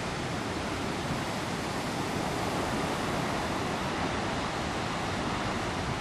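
Heavy storm waves breaking and churning on a sandy beach: a steady, even rush of surf.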